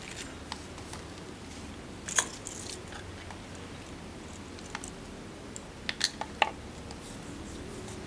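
A few sharp clicks and crackles, bunched about two seconds in and again around six seconds in, over a steady low hum.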